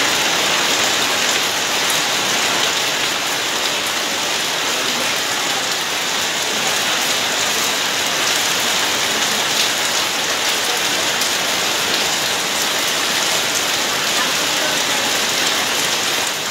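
Rain falling steadily, a dense even hiss with no let-up.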